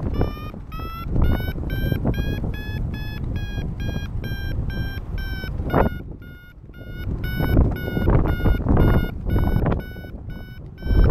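Paragliding variometer beeping quickly, about three short beeps a second, its pitch rising a little early on: the climb tone that signals the glider is going up in rising air. Wind rushes over the microphone, swelling and dropping in gusts.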